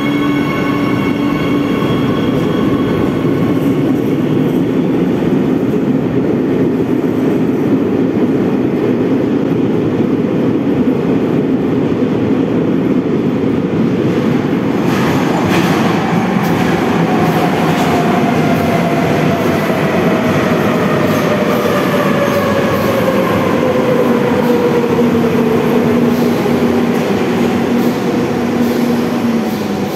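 Madrid Metro Serie 8000 electric train pulling out, its motor whine fading over the first few seconds, followed by a steady rumble of trains in the tunnel. From about halfway a Serie 5500 train arrives, its electric whine falling steadily in pitch as it brakes into the platform.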